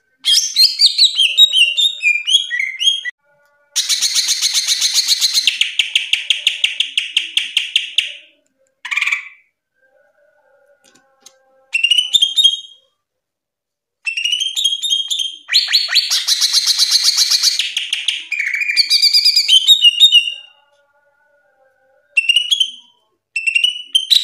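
Green leafbird (cucak ijo) singing loudly. Its phrases mix quick high chirps and sliding whistled notes with long, fast, rattling trills, and short silent gaps fall between them.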